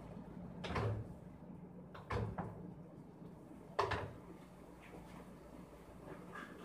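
Three dull knocks, about a second and a half apart, with a few fainter ones after them, from things being handled in a kitchen. A steady low hum runs under them.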